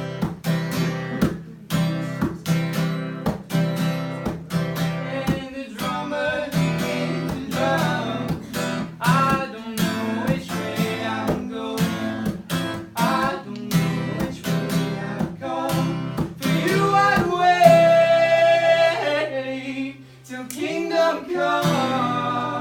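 Music: an acoustic guitar strummed steadily, with singing over it and one long held note about seventeen seconds in. The music dips briefly about twenty seconds in.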